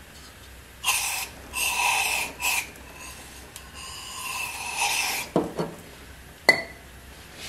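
Steel head stud being unscrewed by hand from a 7.3 IDI diesel block, its threads rasping in several short strokes, then three sharp metallic clinks near the end. The stud is being backed out because it would not bottom out, likely from crud in the threaded hole.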